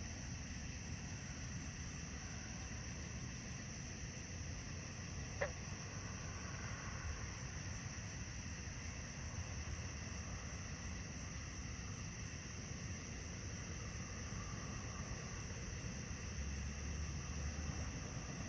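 Steady high-pitched chirring of night insects, likely crickets, over the low roar of distant road traffic. One brief click about five seconds in.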